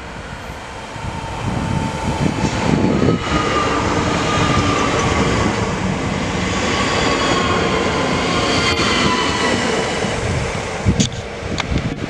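ÖBB Cityjet class 4744 (Siemens Desiro ML) electric multiple unit running into the station and passing close by. Its noise swells over the first couple of seconds and holds, with a faint electric whine from the traction drive falling in pitch as the train slows, and a few sharp knocks near the end.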